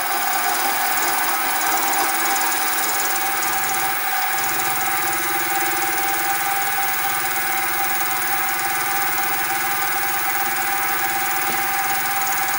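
Sieg SX2P mini mill running, its end mill cutting the side of a brass connecting rod; a steady motor whine with a clear high tone. The note fills out a little about four seconds in.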